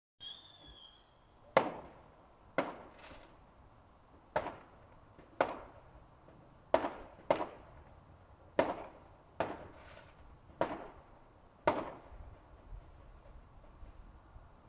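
Distant fireworks going off: about ten sharp bangs at irregular intervals, each trailing off in an echo.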